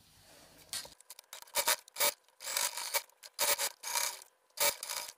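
Brother sewing machine stitching in a series of short runs with brief pauses, starting about a second in.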